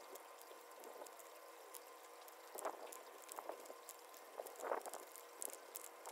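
Faint, scattered clicks and scrapes of a metal spoon scooping wet, rinsed birdseed from a plastic colander and tipping it into a glass mason jar.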